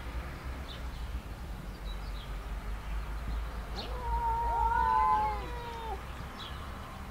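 Domestic cats yowling at each other in a standoff before a fight: drawn-out, wavering caterwauls that overlap, loudest from about four to six seconds in.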